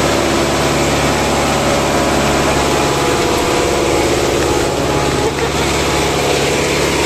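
Kubota MU5501 tractor's four-cylinder diesel engine idling steadily.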